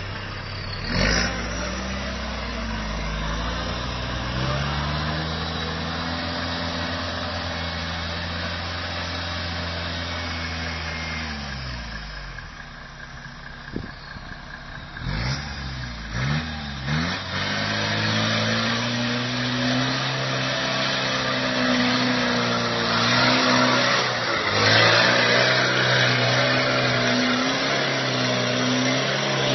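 Off-road 4x4's engine working under load up a steep muddy track, its pitch rising and falling as the throttle is worked. A few sharp knocks come about a second in and again around fifteen seconds in.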